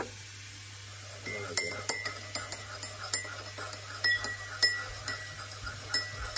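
Metal teaspoon clinking against the inside of a ceramic mug while stirring coffee. The sharp, ringing clinks start about a second and a half in and come about three a second.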